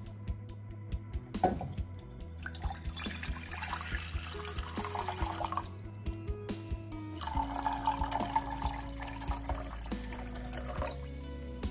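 Water poured from a cup into an empty stainless steel saucepan, in two pours. The first runs about three seconds, and after a short pause a second, slightly longer pour follows, with background music under both.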